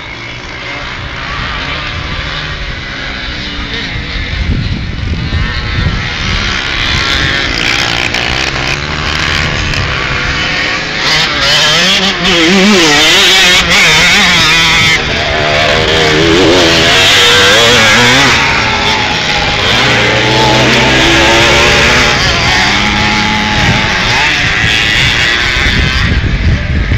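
Several vintage two-stroke motocross bikes racing, their engines revving up and down through turns and gear changes with several overlapping pitches. The sound builds and is loudest around the middle as bikes pass close.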